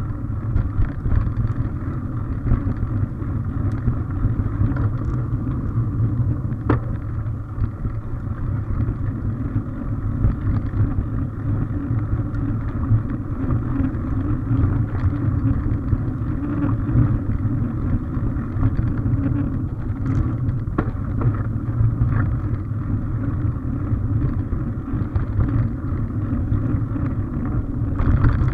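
Mountain bike rolling along a dirt forest trail: a steady low rumble of the tyres on the track and the bike shaking, with a few sharp rattles.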